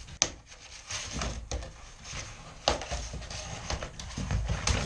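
Peel-and-stick vinyl plank being bent and snapped along a utility-knife score line: a few sharp cracks, the loudest about a quarter second in and again past halfway, amid rustling and handling of the plank.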